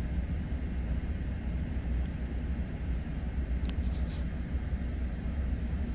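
A steady low rumble with no voices, broken by a few brief faint high sounds about two and four seconds in.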